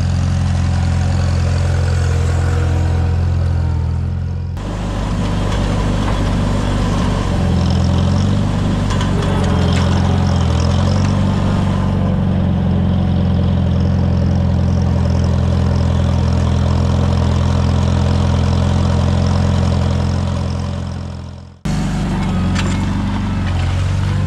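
Farmall tractor engine running steadily while pulling a plow through corn stubble. The sound changes abruptly about four and a half seconds in, and again near the end, where it fades briefly and then jumps back.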